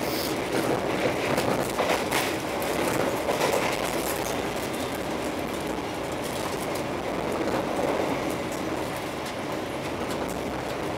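Argo Parahyangan passenger train running at speed, heard from inside the coach: a steady rumble of the wheels on the rails with scattered clicks and knocks.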